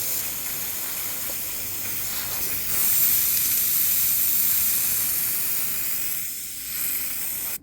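Aerosol can of spray glue spraying in a long, continuous hiss. The hiss gets louder about three seconds in, eases a little near the end, then cuts off abruptly.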